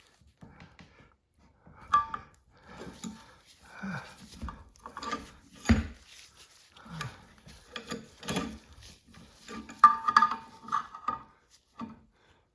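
Metal tools clicking, scraping and clinking against a bench vise as a tight cotter pin is worked out, with a few short metallic rings, the loudest near the end.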